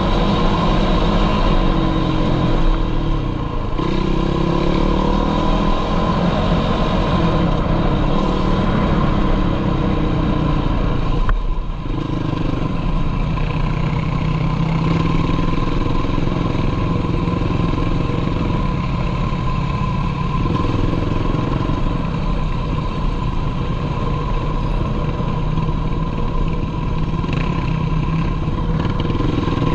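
Sport quad (ATV) engine running under way on a dirt trail, revs rising and falling with the throttle, with a brief dip in revs about eleven seconds in.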